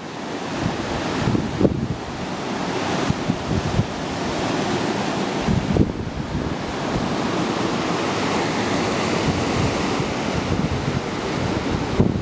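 Steady rushing noise of wind blowing across the microphone, with a few brief low buffets.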